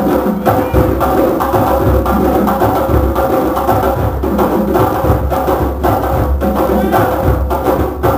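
A drum circle playing a West African rhythm, a dense, steady pattern of many drum strokes interlocking.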